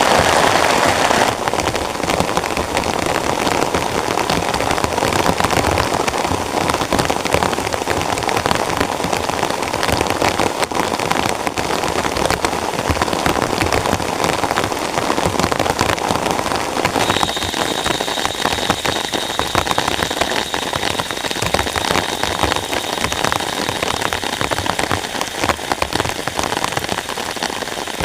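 Heavy rain falling steadily, a dense patter of drops hitting a tent. A faint, thin high tone comes in a little past the middle.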